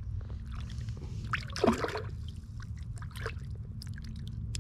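Water splashing and dripping, with one louder splash about a second and a half in and scattered small drips after it.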